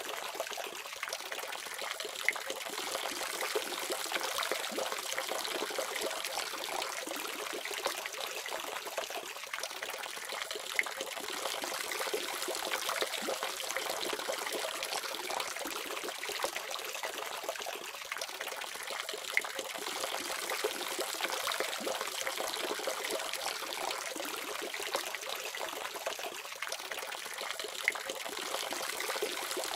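Water running steadily from a faucet, a continuous splashing trickle with small drips and splashes.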